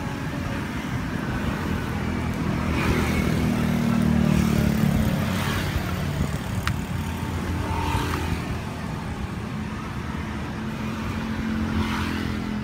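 Road traffic: motor vehicles passing close by, their engine sound swelling to its loudest about four seconds in and again near the end. A single sharp click about seven seconds in.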